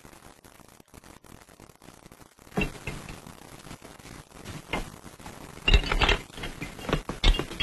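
Hard things, glass among them, being handled and knocked together: a run of irregular knocks and clinks that starts about two and a half seconds in after a faint hiss.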